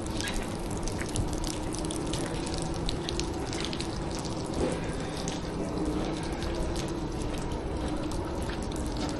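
Rainwater runoff running and splashing after a heavy downpour, with many small drips.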